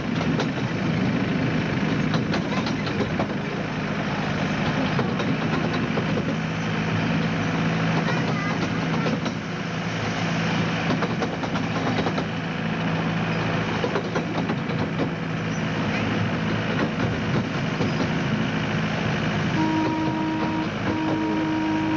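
Miniature park train running along its track, heard from the carriage: a steady engine hum with the rumble and clatter of the wheels on the rails. Near the end a horn-like tone sounds twice, about a second each.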